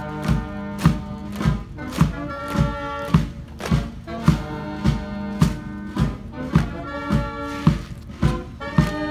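March music played by a band, with sustained wind-instrument chords over a steady drum beat a little under two beats a second.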